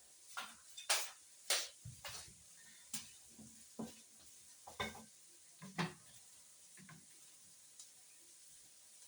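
Kitchen utensils and dishes knocking and clinking while food is prepared: a string of irregular sharp knocks, roughly one a second, thinning out after about seven seconds.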